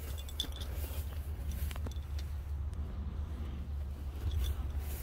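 Outdoor wind rumbling on a phone microphone, with faint rustling and a few soft clicks as someone walks through tall grass.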